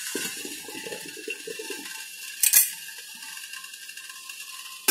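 Stainless-steel idli plate stand rattling and scraping against the steel steamer pot as it is lowered in, with a sharp metal clink about two and a half seconds in and another clank near the end.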